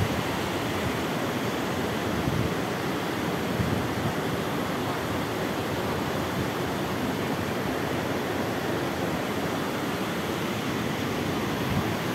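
Fast, shallow mountain river rushing over stones and gravel, a steady noise of running water.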